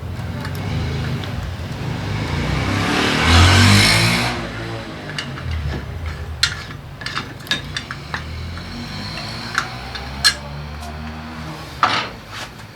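A vehicle engine running, growing louder to a peak about three and a half seconds in and then dying down, followed by scattered sharp metallic clicks and clinks.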